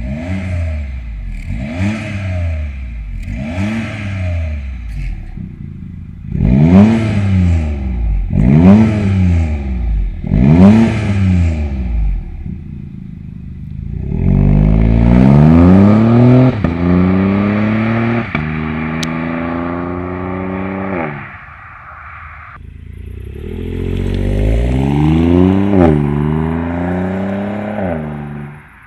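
BMW F70's B38 three-cylinder turbo engine through a valved aftermarket cat-back exhaust with quad tips, revved in six short blips that rise and fall about every two seconds. It is then held at higher revs for several seconds, drops back to idle, and rises and falls once more.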